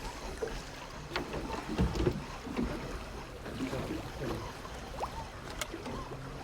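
Strong wind rumbling on the microphone in a small boat on the water, with a few faint knocks.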